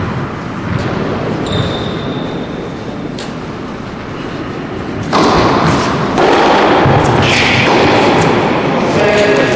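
Tennis ball being struck by rackets and bouncing on an indoor hard court during a serve and rally, the hits sharp and echoing in the hall. About five seconds in, a loud rushing noise comes in suddenly and grows louder a second later.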